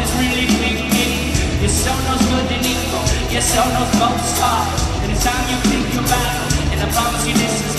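Rock band playing live in an arena: a steady drum beat and sustained bass with a sung vocal line over them.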